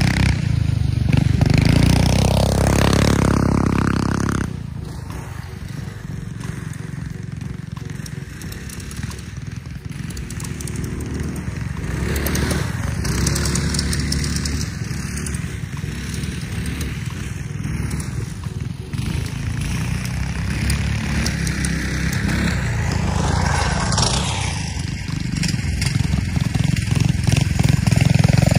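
Off-road go-kart's small engine running as the kart is driven around: loud for the first few seconds, then farther off and quieter, and louder again near the end, with a rise in pitch a little before.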